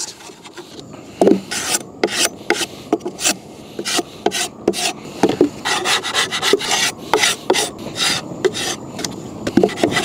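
Metal hive tool scraping the charred inside of a scorched wooden beehive box, a run of short rasping strokes about two to three a second, loosening burnt-on wax and propolis from the wood.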